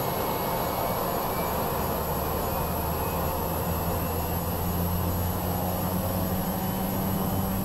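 Cessna 208B Grand Caravan's PT6A turboprop engine and propeller heard from inside the cockpit, with power coming up for the takeoff roll. It is a steady drone whose low hum grows stronger about halfway through.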